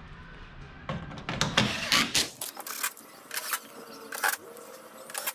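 Tools and an aircraft engine cowling panel being handled: a quick run of sharp clicks and knocks during the first couple of seconds, then single clicks about once a second as the holes are lined up for the cowling screws.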